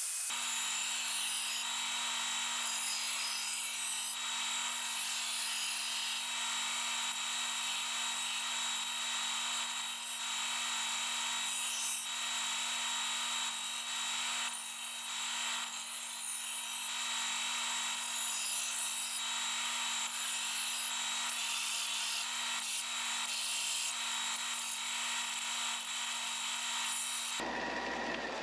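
Angle grinder with a cutting disc running steadily while it cuts through 2.3 mm steel plate, a constant motor tone under a harsh, fluctuating scraping hiss. It cuts off abruptly near the end.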